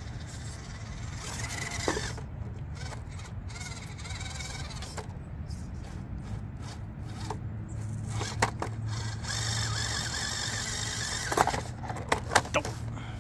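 Small RC crawler's brushed 370 motor and gearbox whining in spurts as the 1/18-scale truck crawls over rocks, with tyres scraping. Near the end there is a cluster of sharp knocks as the truck tips over onto its roof on the rocks.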